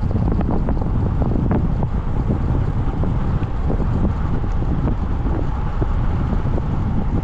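Wind buffeting the microphone in a steady low rumble, with scattered light knocks and rattles through it.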